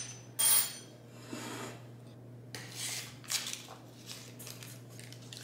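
Two quick clinks of a utensil on a ceramic dish, then soft rustling and scraping as a stick of butter is unwrapped from its paper wrapper and handled on a wooden board. A steady low hum runs underneath.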